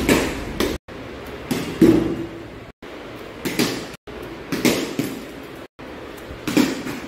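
A run of cricket shots in a tiled porch: about five sharp knocks, each with a short ring, as the ball is played, the sound cutting out briefly between short clips.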